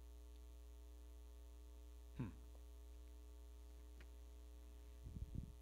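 Near silence with a steady low electrical hum. A brief faint sound comes about two seconds in, and a few soft low bumps just before the end.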